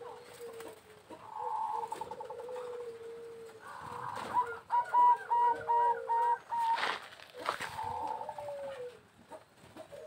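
Zebra doves (perkutut) cooing: several overlapping calls, with a run of about six short, evenly spaced notes midway through as the loudest part. A brief sharp knock comes about seven seconds in.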